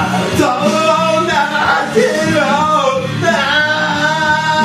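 A man singing loudly into a karaoke microphone over the song's backing music.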